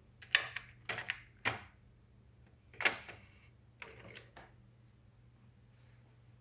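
A series of sharp clicks and knocks: several in the first second and a half, one near three seconds and a few around four seconds, from a hand working the front-panel controls of an open cassette deck. A steady low hum runs underneath.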